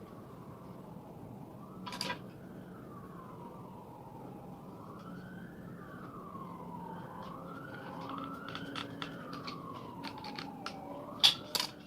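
A siren wailing faintly, its pitch slowly rising and falling over and over, with a few sharp clicks, the loudest two near the end.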